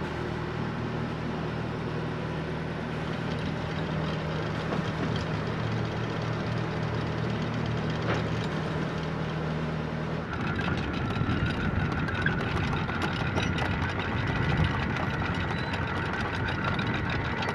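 Sailboat's auxiliary engine running in gear at low revs with a steady hum. About ten seconds in the sound changes to a steady high whine with a rattling clatter: the anchor windlass hauling in chain.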